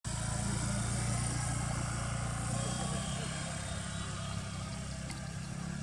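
Steady low hum of an idling engine, with a faint hiss above it and a couple of faint clicks about five seconds in.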